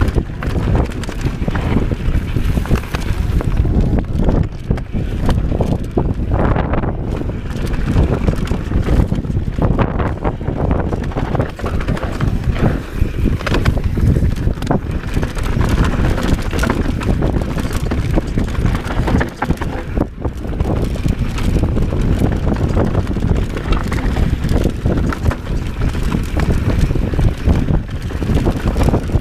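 Mountain bike riding fast down a dry dirt singletrack: steady wind rushing over the camera microphone, mixed with the tyres rolling on dirt and frequent rattles and knocks from the bike over bumps.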